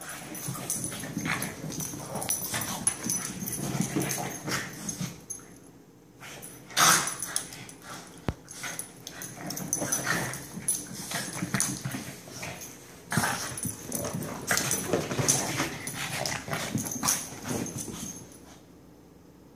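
A Shih Tzu and a Boston terrier play-fighting, making dog noises in irregular bursts that stop shortly before the end.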